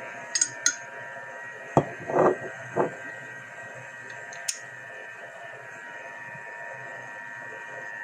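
Several short clicks and knocks in the first few seconds, then only a steady background hum.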